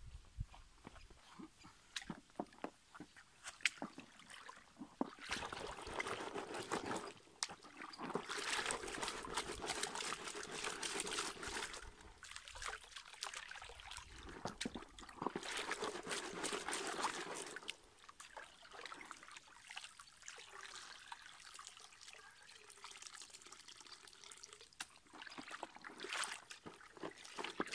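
Water pouring and trickling as a plastic bucket of river sediment is dipped into a shallow stream and tipped, the water spilling back out in several spells of a few seconds each. A few light knocks come in the first seconds.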